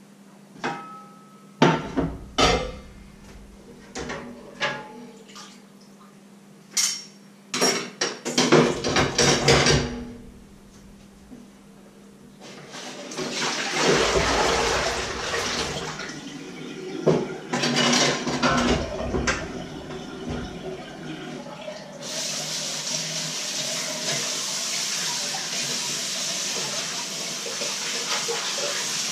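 Steel pots, lids and pans clattering and knocking as they are handled, then a kitchen tap running in a steady stream from about two-thirds of the way through.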